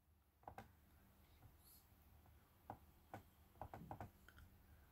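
Near silence with faint clicks from the laptop as the page is scrolled, including a quick run of them about three and a half seconds in.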